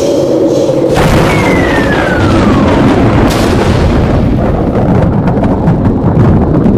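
Edited explosion sound effect: a sudden blast, a whistle falling in pitch, then another burst and a long, loud rumble.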